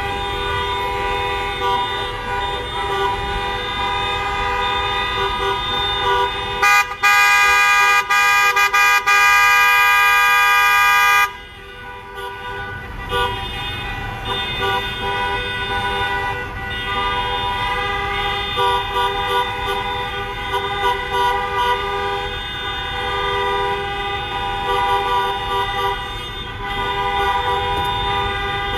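Many car and truck horns honking at once from a slow line of circling vehicles, several tones overlapping continuously. About seven seconds in, one much louder horn sounds close by for about four seconds, with a few short breaks, then cuts off.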